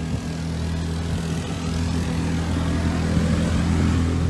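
Motorboat engine running with a steady low drone, growing louder toward the end as the boat comes closer.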